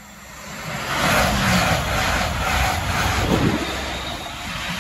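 A GB Railfreight Class 66 diesel locomotive running light passes close by at speed, its two-stroke diesel engine rumbling and its wheels clattering over the rails, while an LNER Azuma passes on a farther line. The noise swells about a second in and stays loud.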